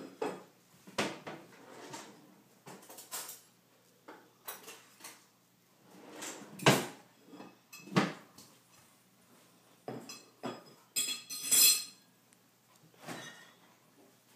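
Scattered clinks and knocks of a fork and ceramic plates on a dining table as a toddler handles his food, with the loudest knock about halfway through and a quick run of clinks toward the end.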